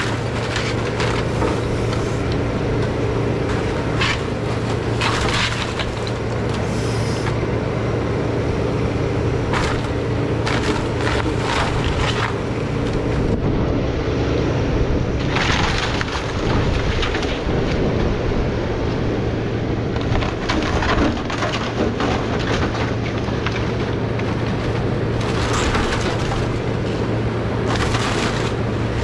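Takeuchi TB2150 excavator's diesel engine running steadily under load as its arm tears into a house roof, with repeated bursts of wood cracking, splintering and crunching several times over.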